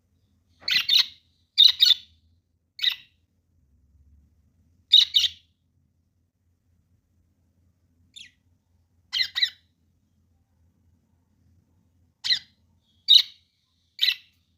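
A parrot giving short, high-pitched squawks, about nine of them, spaced irregularly with brief gaps, some coming in quick pairs.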